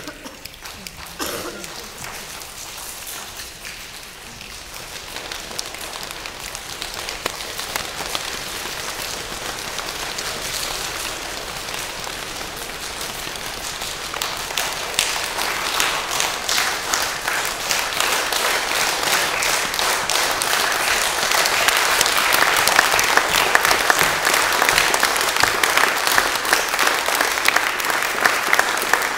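Many hands clapping, starting soft and growing steadily louder over about twenty seconds into full applause.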